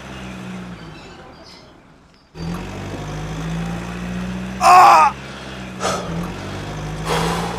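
A truck engine hums steadily, fades away about two seconds in, then starts again abruptly. A short, loud, wavering sound cuts in about five seconds in, and a shorter burst follows near the end.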